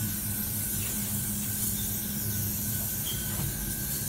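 Aerosol spray paint can hissing in one long, unbroken spray, over a steady low hum.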